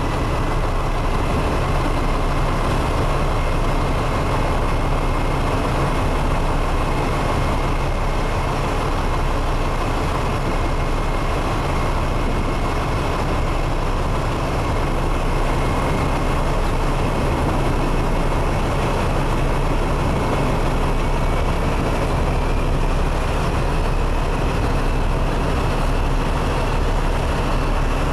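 Steady drone of a ship under way: its engines run with a low hum under a constant rush of noise, and a faint high whine rises slightly near the end.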